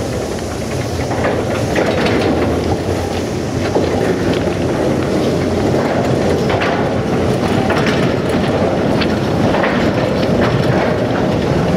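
Railway flat wagons loaded with long rails rolling past, with a steady rumble and irregular clicking and clanking of wheels over rail joints.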